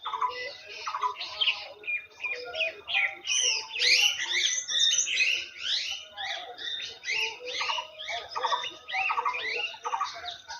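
A flock of small birds chirping and chattering, many short calls overlapping, busiest about four to six seconds in.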